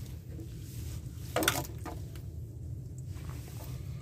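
A wire-hooped mesh fish trap being handled, with one sharp clatter about a second and a half in, over a steady low rumble.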